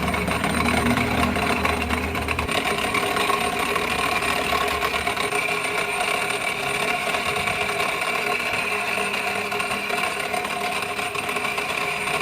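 A machine running steadily with an even whine. A deeper hum underneath fades out about two and a half seconds in.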